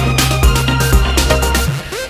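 Electronic background music with a steady beat and heavy bass, briefly dropping out near the end.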